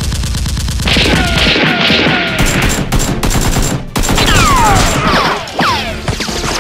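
Movie-style automatic gunfire sound effects: rapid bursts of shots. Several falling whines join them in the second half.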